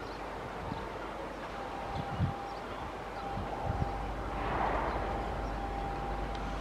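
Vande Bharat Express electric train set approaching at speed, heard from a distance. Its low rumble builds from about four seconds in, with a faint steady high tone running through most of it.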